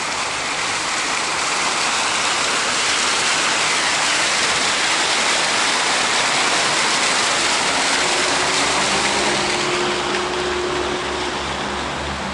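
Fountain water jets spraying and splashing into a stone basin, a steady rush of water that is loudest in the middle and eases a little near the end. About eight seconds in, a low steady hum comes in underneath.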